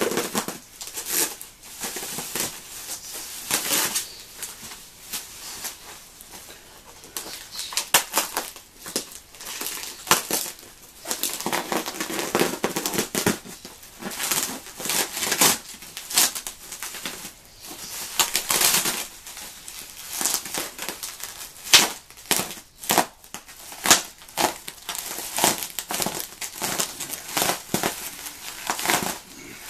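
Bubble wrap and plastic packing crinkling and crackling as it is pulled and unwrapped by hand, in irregular rustles and crackles.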